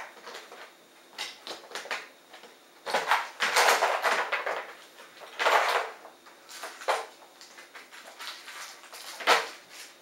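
A plastic compartment organiser box being handled and rummaged through for arrow field points, with scattered sharp plastic clicks and knocks. Longer stretches of crinkling come from the small plastic bags the points are kept in.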